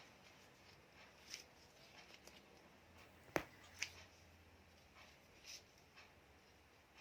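Foot joints cracking under a chiropractic adjustment: one sharp pop about three and a half seconds in, then a smaller click just after, amid faint handling sounds.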